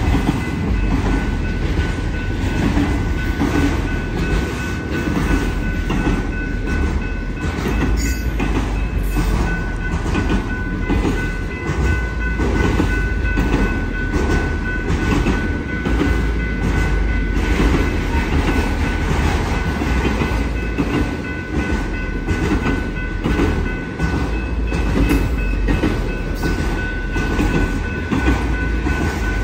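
Freight train of autorack cars rolling past at speed: a steady rumble with a rapid, even clickety-clack of wheels over the rail joints, and a steady high ringing tone above it.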